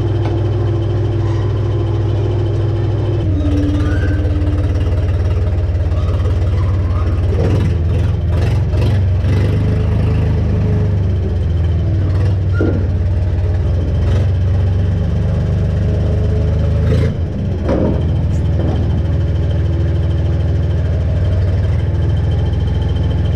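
An engine running steadily at a constant speed, with scattered metal clanks and knocks now and then.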